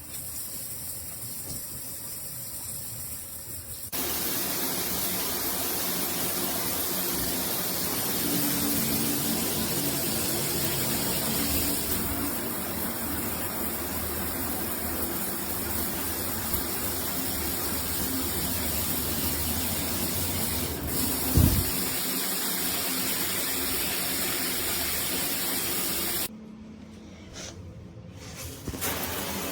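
Shower running, water spraying steadily. It gets louder about four seconds in, with a brief low thump past the middle, and drops away for a few seconds near the end.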